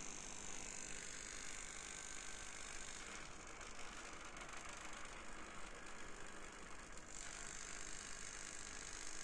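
Homemade electromagnetic oscillator buzzing with a fast mechanical rattle as its coils drive the paper wings, over a steady high whine. The rattle turns harsher for a few seconds in the middle.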